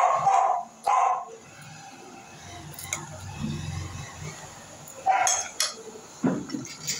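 Eating from a glass dish: a metal fork clinks on the glass a few times. Short loud sounds come at the start, about a second in, and again about five seconds in.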